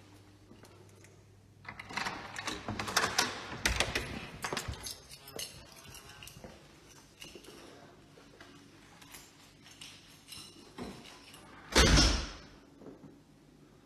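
An apartment's front door being unlocked and opened: keys rattling with latch clicks and knocks for a few seconds, a scattering of quieter knocks after, then one loud thump about twelve seconds in.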